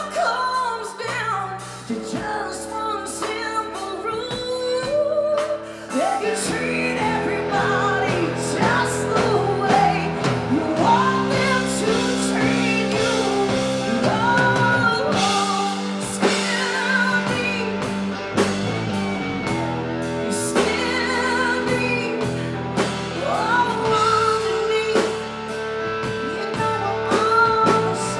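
A live blues band playing, with a woman singing lead over electric guitar, bass guitar and drums.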